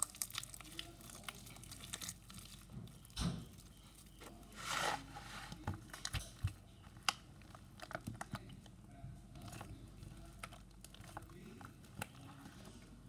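Slime mixed with shaving foam being squished and pulled apart by hand, making irregular sticky crackles and small tearing pops.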